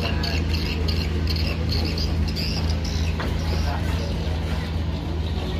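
Idling boat engine running steadily, a deep hum, with rapid high-pitched chirps repeating over it.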